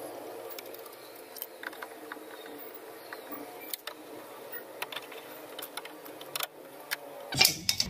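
Socket wrench on a long extension tightening the 10 mm nuts that hold a power-window motor inside a car door: scattered light metallic clicks and taps as the socket is fitted and turned. A louder burst of sound comes near the end.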